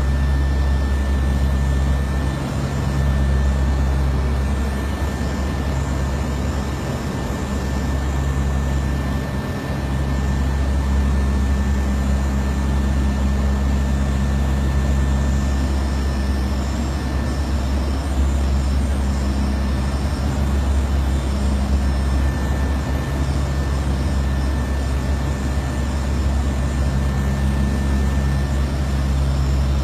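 Four turboprop engines and propellers of a NOAA WP-3D Orion hurricane-hunter droning steadily, heard inside the cockpit, with a thin steady high whine over the low drone.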